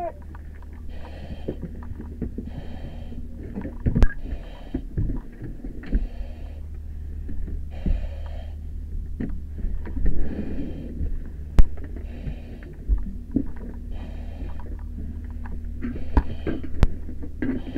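Firefighter breathing through an SCBA air-pack mask and regulator, a hissing breath about every second and a half to two seconds, over a steady low hum. A few sharp knocks cut in, the loudest near the middle.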